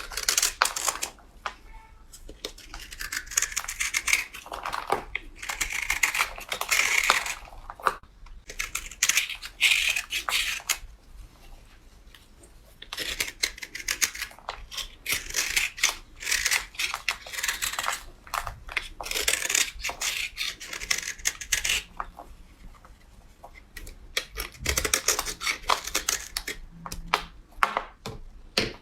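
A blade cutting and scraping through bar soap: crisp, crackling strokes in runs a few seconds long, with short pauses between them.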